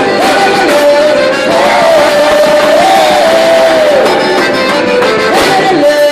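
Band music with a long held note in the melody, over steady accompaniment.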